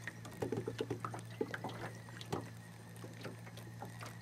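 Small ripples lapping and slapping against the side of a small fishing boat, a string of short irregular splashes over a steady low hum.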